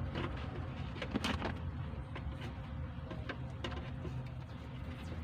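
Scattered light clicks and taps from wiring parts being handled while a relay is fitted, over a steady low rumble.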